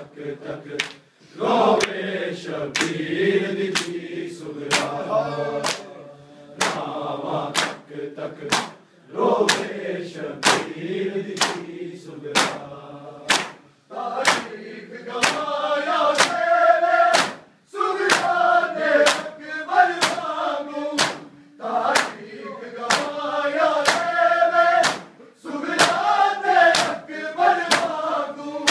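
A crowd of men chanting a Muharram lament (nauha) together while beating their bare chests in matam. Loud, sharp hand slaps land in steady time, about three strikes every two seconds.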